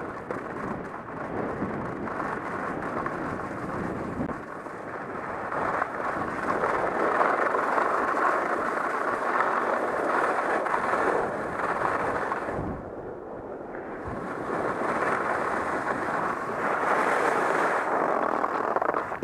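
Wind rushing over a helmet-mounted camera's microphone and skis scraping across groomed snow on a downhill run. The rush swells and eases with speed, dipping briefly about two-thirds of the way through.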